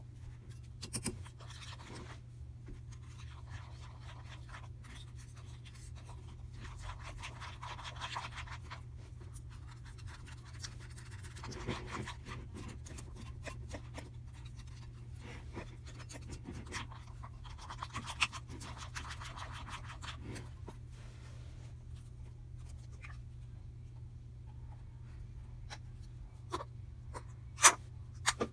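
Plastic spoon stirring and scraping a wet, powdery slime mixture in a bowl: irregular scratchy swishes with small clicks of the spoon against the bowl, over a steady low hum. A sharp tap near the end is the loudest sound.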